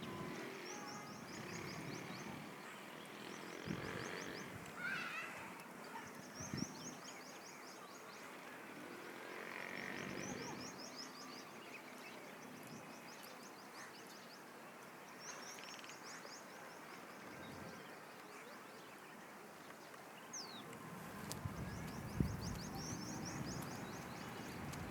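Birds chirping outdoors, one of them repeating a high, rapid trill of about a dozen notes five times, every four or five seconds, with scattered lower chirps between.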